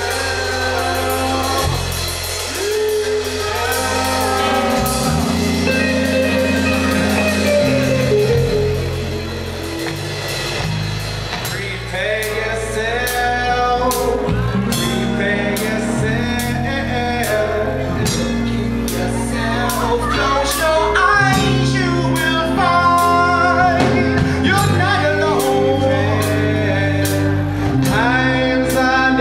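Live reggae band playing: drum kit, electric bass and guitar, with a vocalist singing over the groove.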